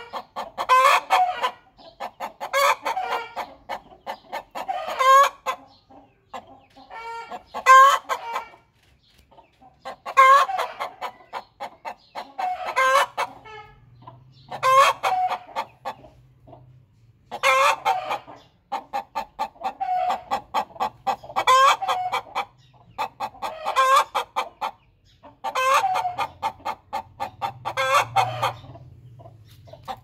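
A domestic hen cackling: runs of quick clucks, each ending in a louder drawn-out call, repeated about every two seconds. It is the cackle a hen gives after laying an egg.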